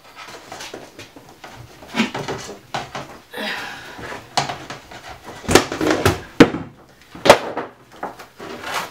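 Handling noise at a front-opening acrylic snake cage as a large boa constrictor is lifted out with a snake hook: the hook and the cage fittings knock and clatter, several sharp knocks with rustling between them.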